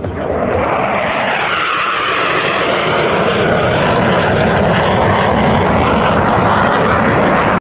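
A fighter jet flying past: loud, steady jet engine noise that swells over the first second, with a whooshing tone that sweeps down and back up. It cuts off abruptly at the end.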